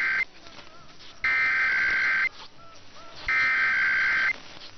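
Emergency Alert System SAME header: three loud bursts of digital data tones, each about a second long with about a second between them. The tail of the first burst is followed by two full ones, the coded header that opens an EAS test transmission.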